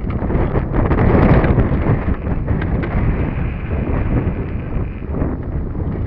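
Wind buffeting the microphone: a loud, uneven rush of wind noise, strongest about a second in.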